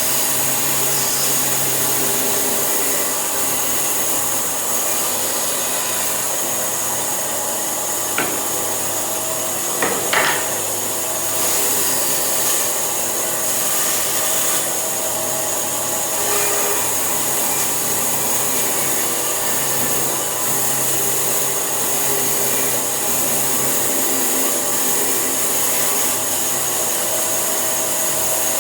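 Electric power tool running steadily while working wood, with a couple of brief knocks about eight and ten seconds in.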